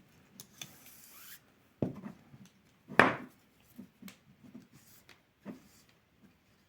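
Paracord being pulled and rubbed through the loops of a monkey fist knot, with scattered handling knocks; the loudest comes about three seconds in.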